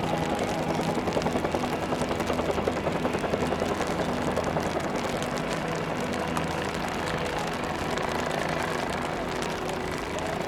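OH-58D Kiowa Warrior helicopters hovering and air-taxiing low: the fast chop of the main rotor over the turbine's whine. The chop throbs strongly through the first half and then settles to a steadier sound.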